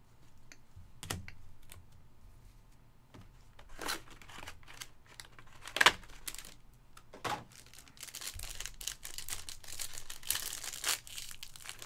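Trading card box packing handled: a few separate clicks and knocks as the foam inserts come out, the loudest about six seconds in. Then, for the last few seconds, a clear plastic wrapper crinkling and tearing as the pack is opened.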